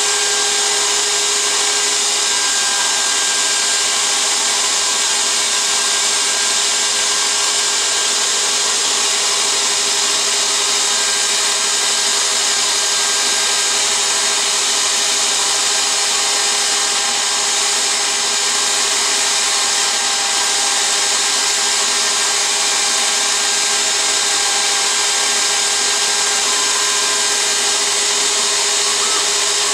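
CNC router spindle running steadily as a V-bit engraves film-faced plywood about 1 mm deep, together with the vacuum table's pump holding the board down. It is a constant, even machine noise: a steady hum-like tone under a strong high hiss, with no pauses or changes.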